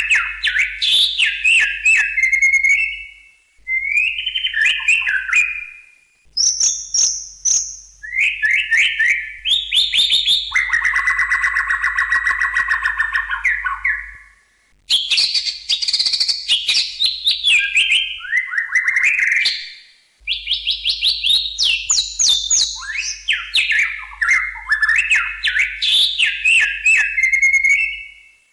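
White-rumped shama (murai batu) singing: fast, varied phrases of clear whistles and rapid chattering notes, with a long buzzy rattling phrase in the middle. The song stops for a moment four times and then picks up again.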